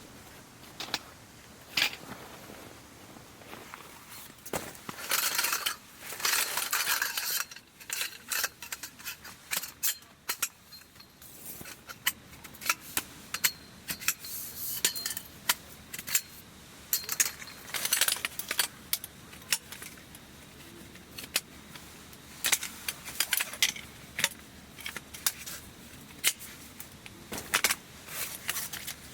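Irregular small clinks and knocks of hard items being handled, with stretches of rustling, as camping gear is moved about and set out.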